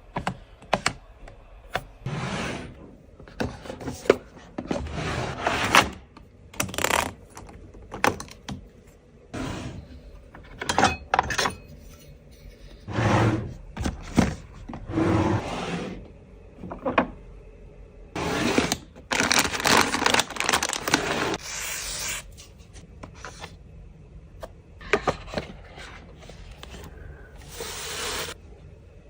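Phone box and its packaging being handled and opened: irregular scraping, rubbing and rustling, with sharp clicks and light knocks in between.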